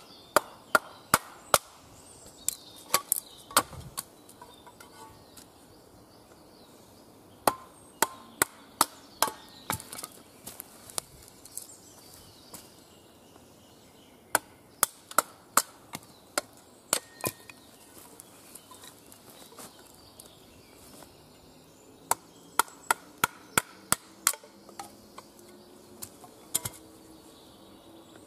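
Sharp wooden knocks of a Cold Steel Special Forces shovel's blade being driven into a log on a chopping block to split it. The knocks come in four runs, several strikes a second, with short pauses between runs.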